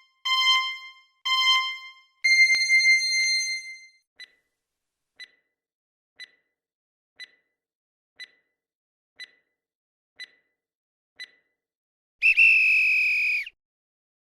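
Electronic quiz countdown-timer sound effect. Two short beeps and a longer tone, then eight short ticks once a second, then a brighter tone about a second long near the end that signals time is up.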